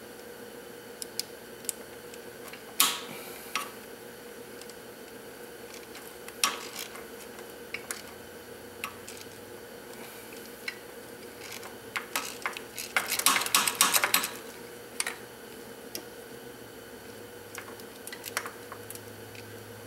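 Hand ratchet clicking and a metal socket clinking as valve cover bolts are loosened: scattered single clicks, and a quick run of ratcheting about two-thirds of the way through.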